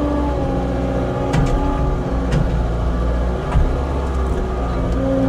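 Skid steer engine running steadily, with three short knocks from the machine as it works in mud.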